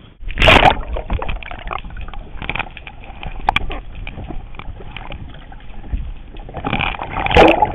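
Choppy water sloshing and slapping against a plastic kayak, mixed with knocks and scraping as the phone bumps and rubs against the hull. The loudest knocks come about half a second in and again near the end.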